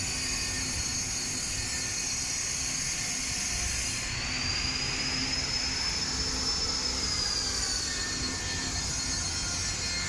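Steady hum and low rumble of factory machinery, with a thin high-pitched whine that rises slightly about four seconds in and falls back near the end.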